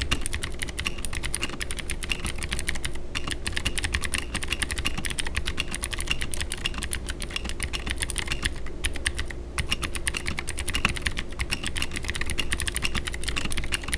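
Fast, continuous typing on a Womier K66 60% mechanical keyboard with clicky Gateron blue switches: a very high-pitched stream of clicks, with a brief lull about nine seconds in.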